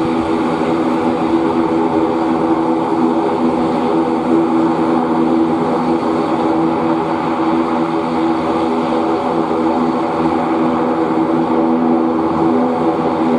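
Twin turboprop engines and propellers of an ATR 72-600 running steadily, a droning hum with several held tones and no change in pitch.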